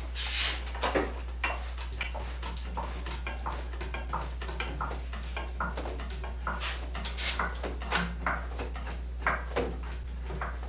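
Irregular light metallic clicks and clanks of steel tools and machine parts as a heavy lathe is pried up to take its weight off its moving skates, over a steady low hum.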